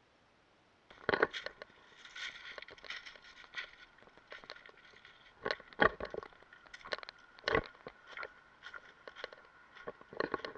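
Footsteps crunching and clattering over gravel and loose rocks, starting about a second in, with several sharp knocks among them.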